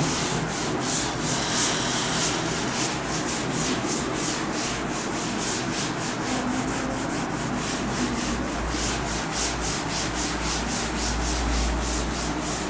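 Chalkboard duster wiping chalk off a chalkboard in quick back-and-forth strokes, about four a second, a steady scrubbing rub.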